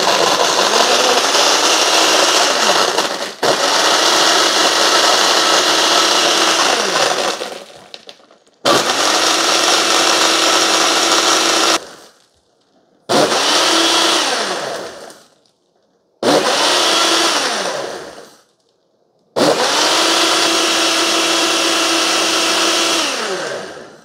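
Mr. Coffee frappe maker's built-in blender (model BVMC-FCM-2T) running its automatic blend cycle on coffee brewed over ice, with milk and chocolate sauce, for a mocha frappe. It makes one long run of about seven seconds, then four shorter bursts with pauses between them, and the motor winds down at the end of each.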